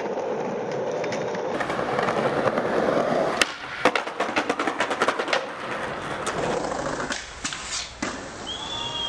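Skateboard wheels rolling on concrete, then a quick run of sharp clacks from the board popping and landing about midway.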